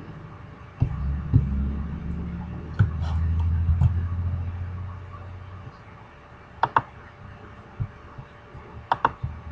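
Low steady hum, louder for the first half and quieter later, with about half a dozen sharp clicks of a computer keyboard and mouse being operated, including two close pairs near the end.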